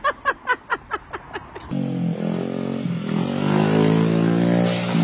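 A person laughing in quick short bursts, then an abrupt switch to a small motorbike's engine running, its pitch wavering up and down as the throttle changes.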